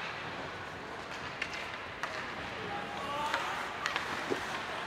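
Ice hockey game in a rink: a steady hum of arena noise with a few sharp clacks of sticks and puck, and faint distant voices.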